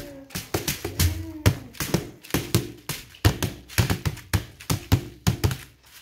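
Fingertips tapping and pressing on a sheet of puffy plastic stickers laid on a tabletop: a quick, irregular run of sharp taps, about four a second.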